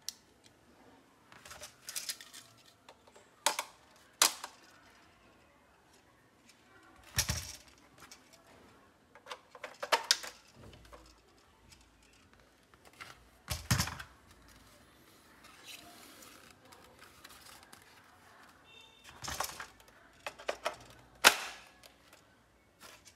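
Plastic toy rifle parts being handled and snapped together, a flashlight attachment clipped onto the rail and a curved magazine fitted: scattered sharp plastic clicks and knocks with quiet gaps between, the loudest click near the end.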